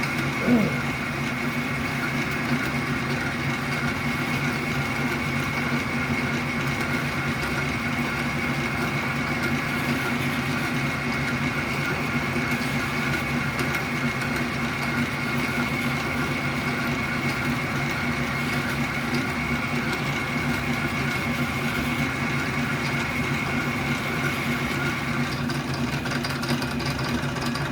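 South Bend metal lathe running steadily with a constant gear hum while a drill bit cuts a small pilot hole into a metal blank. A high whine in the sound fades away near the end.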